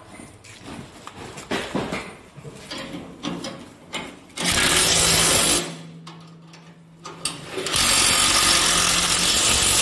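Scattered knocks and clatter of metal work, then a power tool runs in two loud bursts, one of about a second in the middle and a longer one of about two seconds near the end, a loud hiss over a steady hum.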